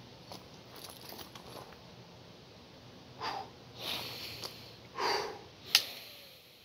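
A man's deep breaths, four loud breaths in and out starting about three seconds in, the last one short and sharp. They are deliberate deep breaths taken to settle down after a shooting string.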